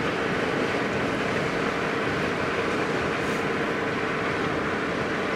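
Steady road noise inside a moving vehicle's cabin: tyres and engine running evenly along the highway, with a faint constant drone.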